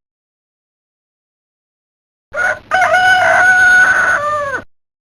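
Rooster-crow ringtone from a Samsung Anycall SCH-E110 phone: after about two seconds of silence, a short note, then one long crow that falls away at the end.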